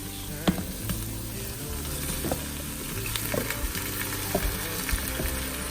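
Beef chunks sizzling in the Instant Pot's inner pot on the sauté setting as they are stirred in with the onions and tomato paste. A utensil knocks against the pot now and then with short, sharp clicks.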